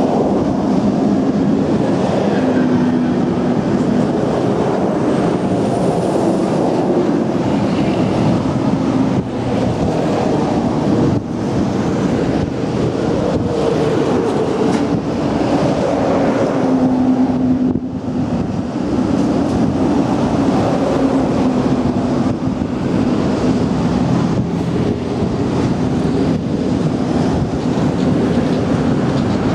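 Heavy road traffic, mostly trucks, passing close by on a bridge roadway: a continuous loud rumble of engines and tyres, with pitches that drift as vehicles go by.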